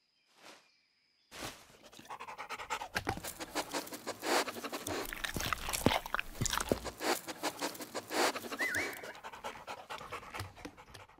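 A dog panting and sniffing in quick, rapid breaths close up, starting about a second in, with a brief high squeak near the end.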